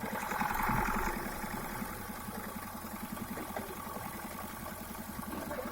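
Chevrolet diesel engine idling with an even, steady pulse while its injector nozzles are being repaired. A louder hiss rises over it briefly in the first second.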